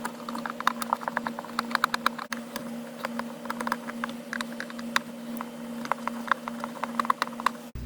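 Ratchet wrench clicking rapidly and unevenly as it backs out the console bolts, over a steady low hum.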